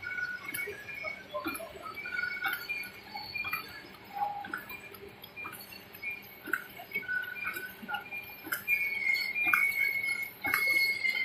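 Automatic cutlery packing machines running: irregular clicks mixed with short high squeaks, and a steady high whine that comes in about eight seconds in.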